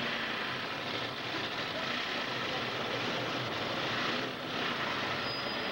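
Demolition derby car engine running hard, heard as a steady rushing noise with faint voices underneath.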